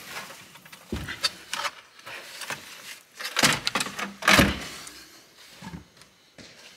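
Knocks, clunks and scraping from a Saab 9-3 sunroof glass panel and its frame being lifted and handled, with the loudest knock about two thirds of the way through.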